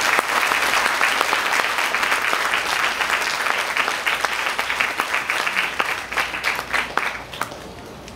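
Audience applauding: dense clapping that thins out to scattered claps near the end.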